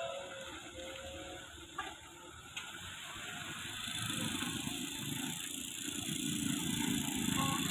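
Engines of a 4x4 pickup and a loaded dump truck working hard in deep mud as the pickup tows the truck: a rattly low rumble that grows louder from about halfway in, with two sharp clicks shortly before.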